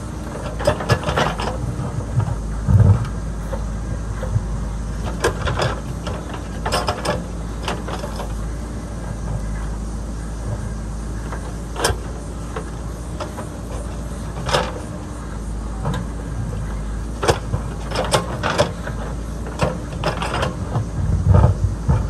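JCB backhoe loader's diesel engine running steadily while it digs, with a dozen or so short clanks and knocks from the working arm and bucket scattered through it.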